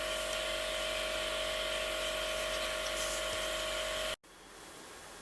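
Small home-built bandsaw running, its electric bicycle motor and straight-cut pinion reduction gear giving a steady motor-and-gear whine; it cuts off suddenly about four seconds in, leaving faint room tone.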